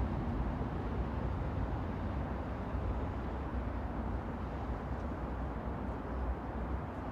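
Moving train: a steady low rumble with an even hiss above it, with no distinct clacks or horn.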